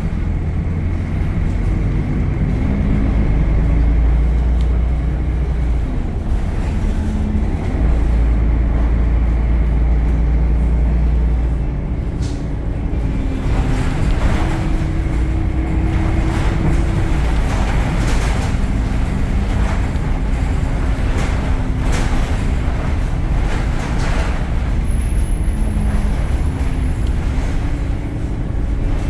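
Temsa Avenue LF city bus under way, its DAF diesel engine and ZF gearbox running with a heavy low rumble and a drive whine that shifts up and down in pitch. Occasional sharp knocks and rattles come through. The rumble is heaviest in the first dozen seconds, then eases.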